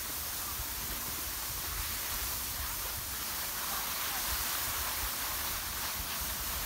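Steady hiss of skis sliding over packed snow, with wind buffeting the microphone as an uneven low rumble underneath.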